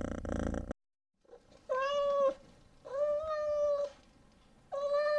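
A domestic cat purring, cut off suddenly, then after a short pause meowing three times. Each meow is long and held level in pitch, and the middle one is the longest.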